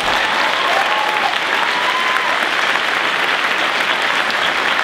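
Large convention audience applauding steadily.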